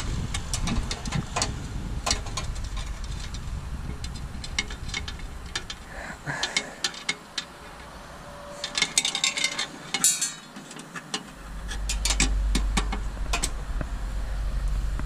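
Irregular metallic clicks, taps and knocks of hand tools working on combine harvester parts during a repair, with a cluster of quick clinks about nine to ten seconds in. Under them a low rumble drops away about six seconds in and returns about eleven and a half seconds in.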